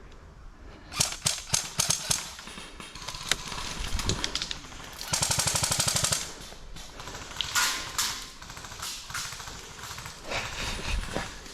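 Airsoft guns firing: a few quick single shots about a second in, then a full-auto burst lasting about a second midway, with some scattered shots near the end.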